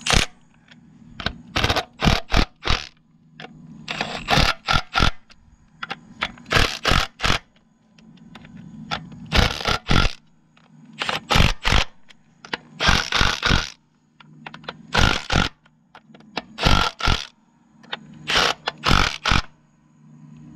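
Milwaukee Fuel cordless impact wrench run in short bursts, a few pulls of the trigger at a time roughly every two seconds, snugging bolts a little at a time to press a seal in evenly.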